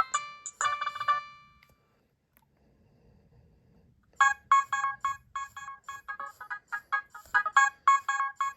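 Nokia 6010 mobile phone playing its ringtones. One tune ends about a second and a half in, and after a short pause another ringtone starts about four seconds in with a fast run of short repeated notes.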